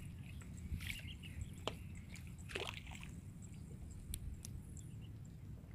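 Faint sloshing and dripping of shallow paddy water as a toy car is fished out by hand, with a few light clicks and a short swish about two and a half seconds in.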